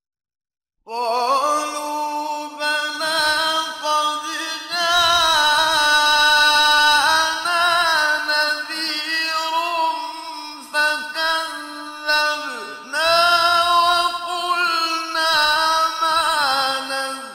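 A man chanting the Quran in slow, melodic recitation, holding long ornamented notes that bend up and down. It begins about a second in after a moment of silence, with a short break about two-thirds of the way through.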